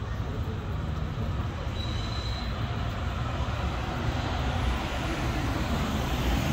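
A rail vehicle running: a steady low rumble, with a brief faint high wheel squeal about two seconds in.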